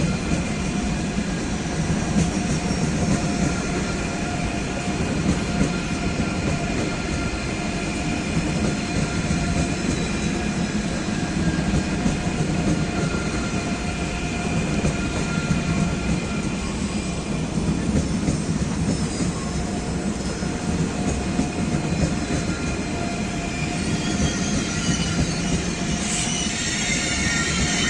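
A train moving slowly over the tracks, with a steady rumble and high, held wheel squeal. The squealing turns louder and shriller near the end.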